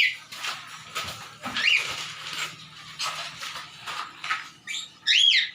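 Parrot screeching in short, harsh calls: one about a second and a half in, then a louder double call near the end, over faint knocks and rustling.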